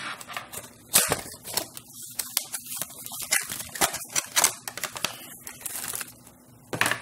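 Plastic packaging and paper handled by hand: a clear plastic tray and a paper CD sleeve crinkling, with a run of irregular clicks and rustles, the sharpest about a second in.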